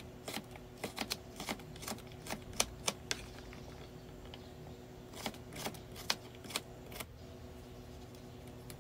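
Large kitchen knife chopping fingerroot (krachai) on a wooden cutting board: a run of quick, irregular taps for about three seconds, then a few more a couple of seconds later.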